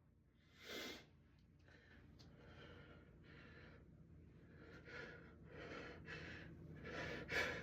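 A person's quiet, sharp breath in about a second in, then a run of gasping breaths that grow louder toward the end. These are the catching in-breaths that build up to a sneeze during a sneezing fit.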